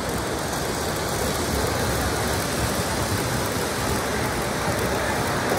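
Model passenger train rolling along its track, a steady rumble of metal wheels and motor with no breaks.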